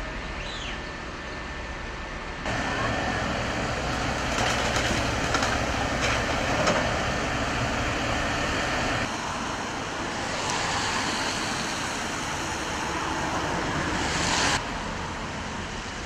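Steady outdoor noise of engines and heavy machinery, with scattered short knocks. The sound changes abruptly in level three times.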